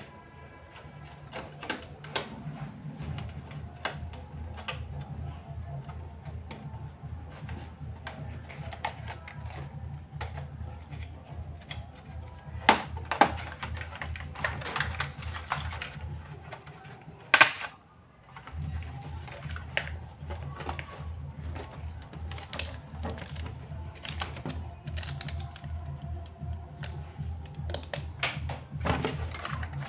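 Hands handling an LCD panel and its flat ribbon cable: a run of light clicks, taps and rustles, loudest a few sharp clicks around the middle, over a steady low hum that drops out briefly a little past halfway.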